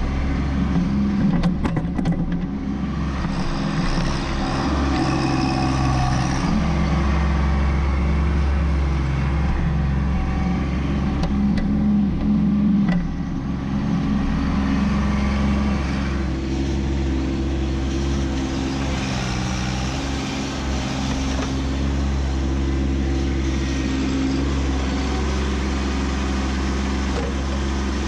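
Kubota B2601 compact tractor's three-cylinder diesel engine running steadily, its note shifting up and down with load as the stump bucket on the front-end loader digs into the soil. A few knocks sound about two seconds in.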